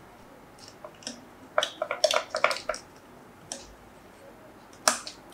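Small plastic clicks and taps as the control buttons of an infrared thermometer are pressed back into place in its housing. There is a quick run of clicks about two seconds in and a few single ones around it.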